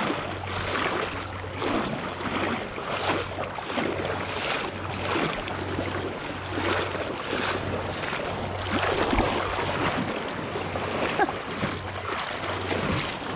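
Shallow seawater sloshing and splashing in repeated soft strokes as someone wades toward shore, with small surf and wind buffeting the microphone.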